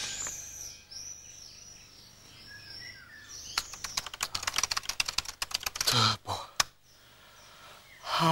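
Birds chirp faintly for the first few seconds. Then a computer keyboard is typed on rapidly for about two seconds, a quick run of key clicks. A short voice sound follows, and near the end a man begins a yawn that falls in pitch.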